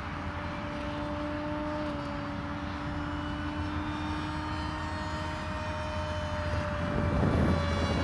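FunJet RC plane's Turnigy 3648 1450 kV brushless motor on 6S, turning a 6x5.5 propeller in flight: a steady propeller whine that holds a nearly constant pitch. A louder rushing noise swells near the end.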